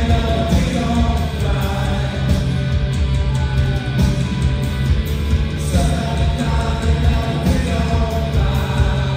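Live rock band playing through a concert PA: electric guitars over a steady, loud bass line and drums.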